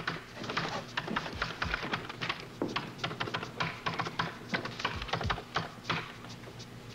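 Rapid typing on a computer terminal keyboard, the keys clicking several times a second, slowing and stopping near the end.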